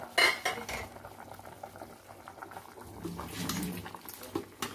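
Chicken livers simmering and bubbling in sauce in a metal pot. There is a sharp clatter about a quarter second in, and a metal spoon clinks against the pot near the end as the livers are stirred.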